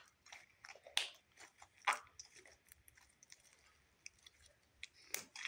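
Slime being kneaded by hand as modelling clay is worked in to make butter slime: irregular soft, sticky squishes and crackles, with a few louder pops.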